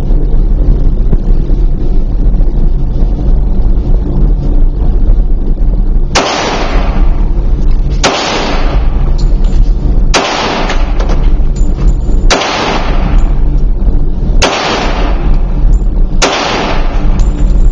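Heckler & Koch Mark 23 .45 ACP pistol fired six times in slow, deliberate succession, about one shot every two seconds, starting about six seconds in. Each shot rings out in a long echo off the concrete walls of an indoor range, over a steady low rumble.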